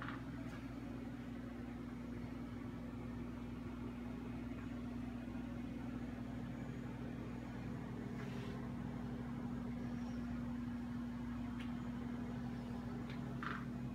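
Steady low mechanical hum at one unchanging pitch, with a few faint clicks and taps.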